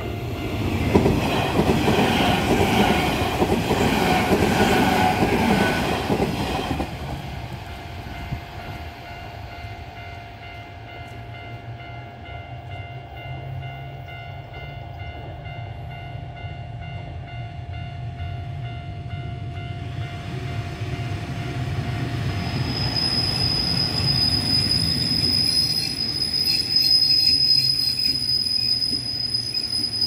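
Level-crossing alarm ringing steadily, with a loud rumbling pass-by in the first seven seconds. From about two-thirds of the way in, the Kintetsu Moto 75 electric work car approaches slowly with a rising rumble and a high, steady wheel squeal as it draws up alongside to stop.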